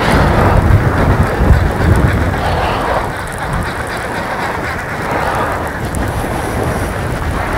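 Strong wind buffeting the microphone, with heavy low rumbling gusts in the first couple of seconds that settle into a steadier rush.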